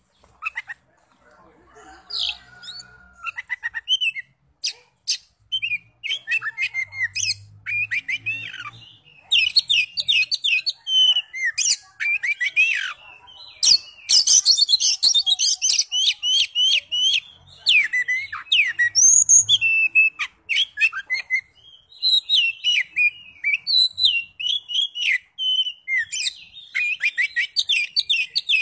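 Caged oriental magpie-robin singing a long, varied song of rapid whistles and chattering notes, sparse at first and nearly continuous from about nine seconds in.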